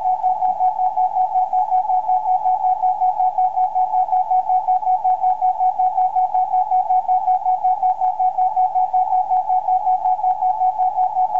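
The ES0SIX 50 MHz beacon received in CW mode on a Kenwood TS-480SAT: a single mid-pitched beep tone, pulsing quickly and evenly, over faint band hiss.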